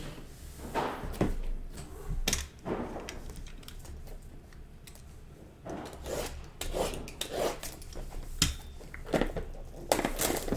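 Scattered taps, clicks and rubbing of trading-card packs, boxes and cards being handled on a table, irregular and uneven in loudness, with a quieter stretch in the middle.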